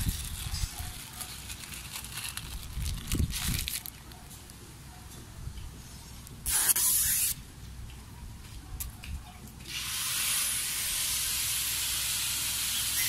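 Backing liner being peeled off the double-sided adhesive tape of a stick-on car window rain-guard visor: a short, loud tearing hiss a little past the middle, then a steady peeling hiss from about three-quarters of the way in.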